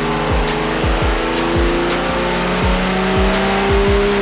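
12-valve Cummins diesel in a Ramcharger running under full load on a chassis dyno, rear tyres spinning on the rollers, with a high turbo whistle rising steadily in pitch as it spools. Music with a steady beat plays underneath.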